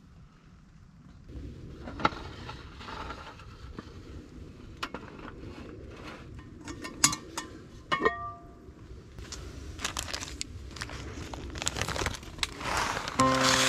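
Cast-iron Dutch oven (Petromax ft3) being handled: scattered clicks and knocks of its wire bail handle and heavy lid, with one ringing metallic clank about eight seconds in. Music starts near the end.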